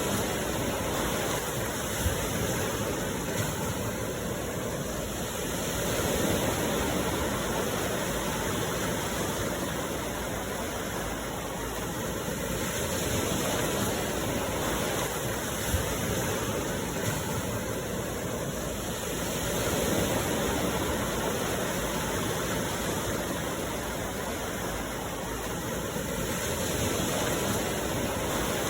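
Sea waves breaking and washing on the shore in a steady rush, swelling every several seconds.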